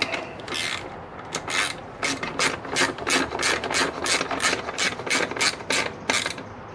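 Hand ratchet tightening an 8 mm bolt: a steady run of ratchet clicks, about four a second, starting about half a second in and stopping just after six seconds.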